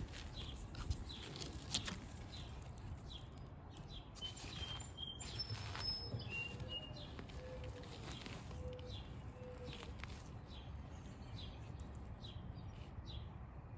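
Faint rustling and scratching of dry soil as hands dig through it for potatoes, in short scattered strokes. A few brief high bird whistles come in the background about a third of the way in.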